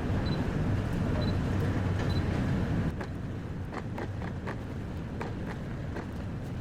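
Steady low rumble of the icebreaker Shirase under way in heavy seas. About three seconds in the sound drops a little and irregular light knocks and rattles begin, several a second.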